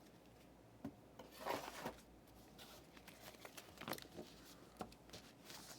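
Faint rustling and tapping of trading cards and pack wrappers being handled, in a few short bursts.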